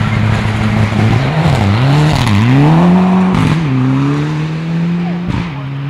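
Rally car engine at full effort on a gravel forest stage, passing and pulling away. The revs dip and climb back three times, then drop and settle lower near the end.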